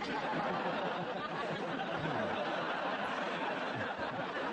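A large studio audience laughing steadily at the host's joke.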